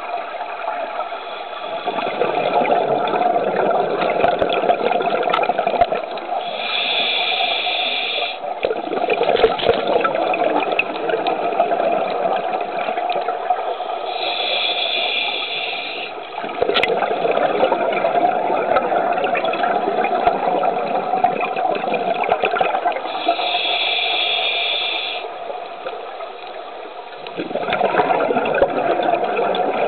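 Scuba diver breathing underwater through a regulator in slow breaths, about one every eight to nine seconds. Each breath is a short hissing inhale followed by a long gurgling rush of exhaled bubbles.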